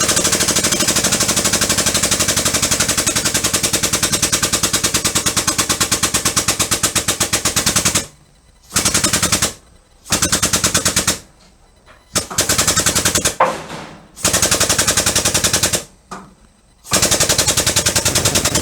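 Air-over-hydraulic ram on an engine hoist, its air-driven pump chattering rapidly as it raises a load. It runs without a break for about eight seconds, then in five short bursts with pauses between.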